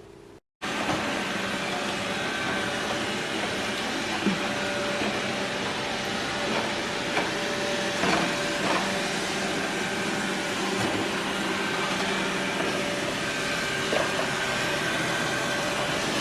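A robot vacuum cleaner running steadily, starting abruptly about half a second in, with a few light knocks over it.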